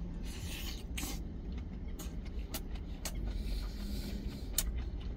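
Close-up mukbang eating sounds: wet chewing, with mouth clicks and smacks, of a mouthful of fried egg and stir-fried kimchi. Underneath is a low, steady rumble.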